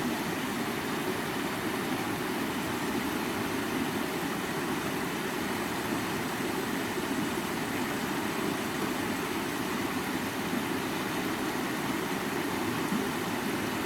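A stream's water running with a steady, unbroken rush.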